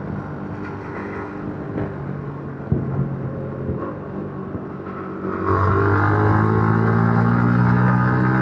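Yamaha MT-15's single-cylinder engine on its stock exhaust, running steadily, then opened up about five seconds in: it gets louder and its pitch climbs gradually as the bike accelerates.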